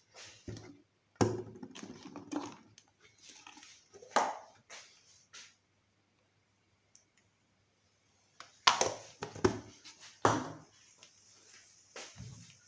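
Kitchen handling sounds: utensils and dishes knocking and clinking now and then as an omelette is prepared, with a quiet stretch in the middle and a quick run of sharper knocks in the second half.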